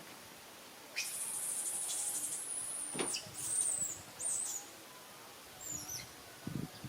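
High-pitched animal calls: one long, thin squealing call starting about a second in and dropping sharply in pitch at its end, then a few shorter squeals and falling chirps.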